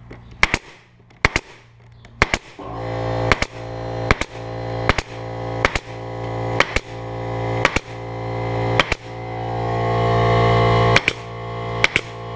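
A pneumatic staple gun firing about a dozen times, roughly once a second, each shot a sharp double snap, with a pause about 9 seconds in. From about 2.5 seconds in, a steady machine hum builds up underneath, typical of an air compressor running to refill its tank.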